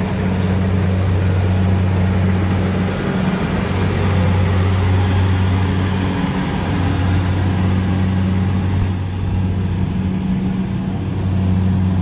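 Crawler rice combine harvester's engine running close by: a steady low drone that eases off briefly a few times.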